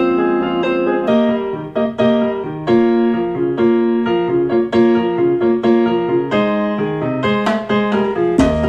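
Piano music played back over a pair of TAD CE1TX hi-fi speakers, a run of separate notes. Just before the end it gives way to a Latin track with deep bass and sharp drum hits.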